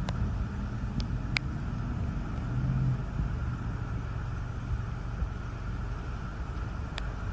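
Strong gusty storm wind buffeting the microphone as a steady low rumble, with a few sharp ticks of blown grit or debris striking the camera.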